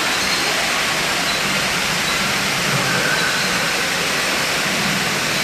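Small artificial waterfall pouring over rockwork into a pool: a steady rush of falling water.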